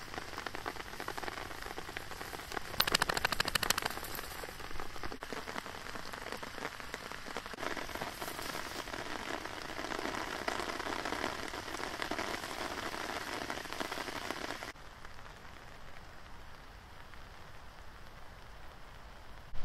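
Tall grass rustling and crackling as it is pushed through, full of fine dry clicks, loudest in a dense burst about three seconds in and quieter from about fifteen seconds in.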